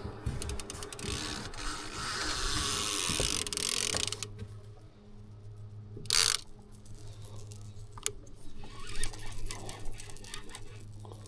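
Fishing reel being cranked, a mechanical whirring and clicking, as a hooked catfish is reeled in. A short scrape or knock comes about six seconds in.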